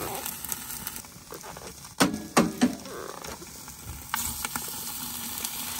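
Red-hot stones sizzling against meat inside a metal milk can, steam hissing, as more stones go in for khorkhog. Three sharp metallic clinks about two seconds in, from stones and tongs striking the can.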